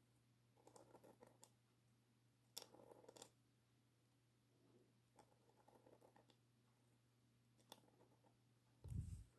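Calligraphy pen nib scratching faintly on paper in short strokes, with a few light clicks, over a steady low hum. A low thump near the end is the loudest sound.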